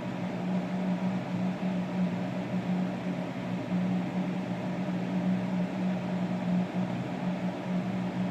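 A steady mechanical hum: a low drone over even hiss, unchanging throughout.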